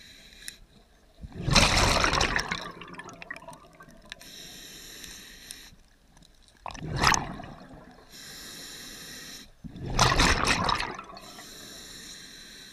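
Scuba diver breathing through a regulator underwater: quiet hissing inhalations through the regulator, broken three times by loud bubbling exhalations, about a second and a half in, about seven seconds in and about ten seconds in.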